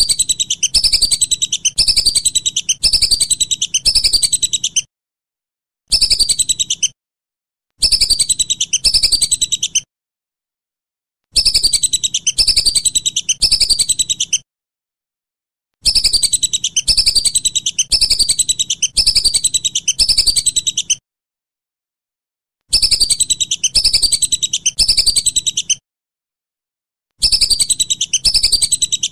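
Whistling duck (belibis) calls: high whistled notes falling in pitch, repeated about twice a second in bouts of one to five seconds, seven bouts in all, with silent gaps between them.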